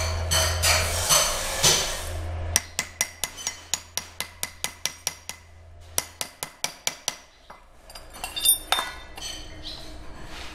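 Music briefly. Then a hammer taps steel on a pelletizer roller assembly about four times a second, light and even, for some four seconds, and a few lighter metal clinks follow.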